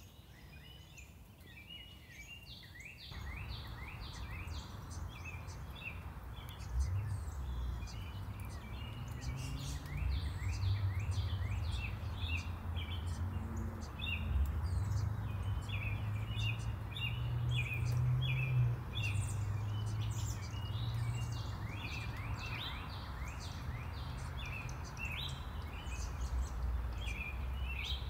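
Songbirds chirping in quick, repeated short notes, over a steady low rumble of town traffic that comes in about three seconds in.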